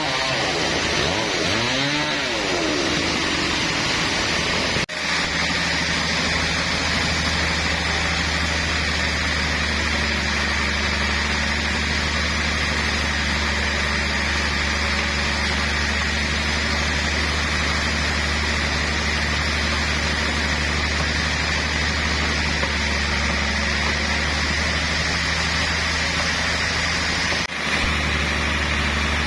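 Sawmill saw and its engine running while cutting a trembesi (rain tree) log: a wavering whine in the first couple of seconds, then a steady low drone. It drops out abruptly for a moment about five seconds in and again near the end.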